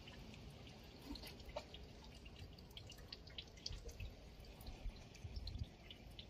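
Faint, irregular dripping of water, with a few low thumps around the middle and toward the end.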